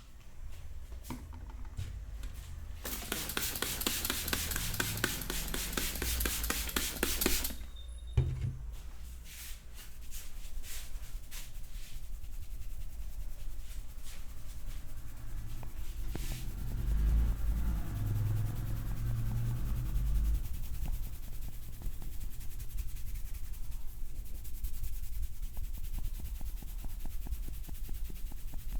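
Hands rubbing and massaging skin and hair, close up. A few seconds in comes about four seconds of fast, dense rubbing, followed by a single sharp click, then softer steady rubbing with scattered clicks and some low thuds.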